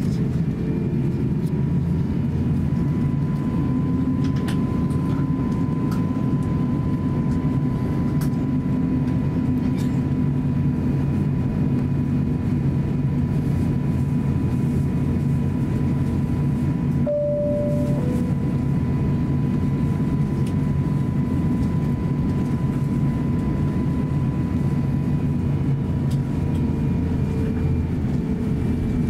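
Airbus A350-900's Rolls-Royce Trent XWB engines at low taxi thrust, heard inside the cabin as a steady hum with a thin whine on top. A short single tone sounds about seventeen seconds in.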